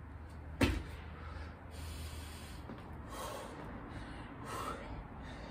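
A man breathing hard and gasping through a burpee. There is one sharp thump less than a second in as he moves on the concrete.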